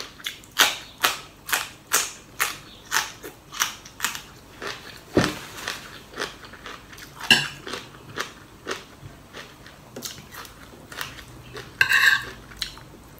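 Close, loud crunching of a raw, crisp green vegetable pod being chewed, about two crunches a second for the first four seconds or so, then slower and softer chewing. Near the end a metal spoon clinks against the plate.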